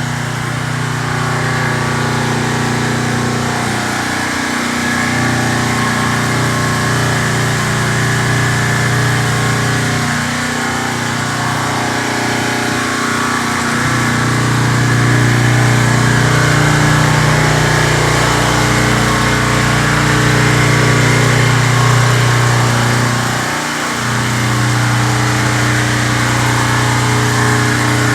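Pressure washer running, kind of loud: a steady hum with a broad hiss over it, dipping briefly about 24 seconds in.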